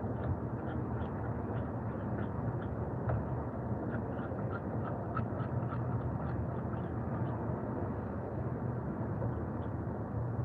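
Outdoor background: a steady low rumble with many short, irregular high chirps or ticks scattered over it.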